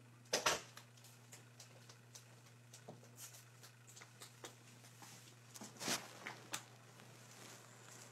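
A person moving about a bedroom: scattered rustles, light knocks and footfalls, with two louder rustling bursts, about half a second in and just before six seconds. A steady low hum runs under it all.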